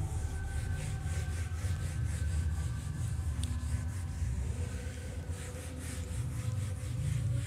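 Felt whiteboard duster rubbing back and forth across a whiteboard, wiping off marker writing in quick repeated strokes.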